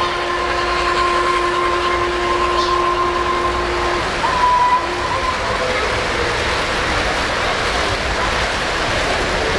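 O-scale model freight cars rolling past on three-rail track with a steady running noise. Over it a model train whistle holds a steady two-note tone that cuts off about four seconds in, followed by a short toot.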